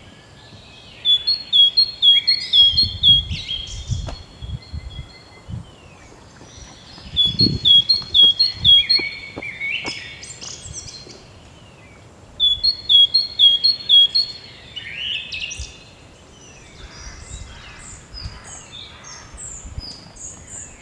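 A songbird singing in three similar phrases about five seconds apart. Each phrase is a quick run of repeated high notes followed by a jumble of varied notes, with fainter, higher chirps from other birds in between.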